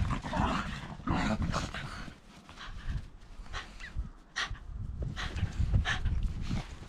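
Shiba Inu dogs making a series of short, uneven dog noises, with a few sharp brief sounds about four and six seconds in.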